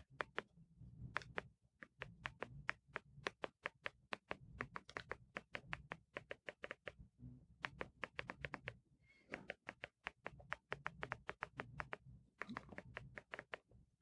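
Function 101 remote control's buttons clicking rapidly, faint clicks several a second in quick runs with a couple of short pauses, as letters are picked one by one on the Apple TV's on-screen keyboard.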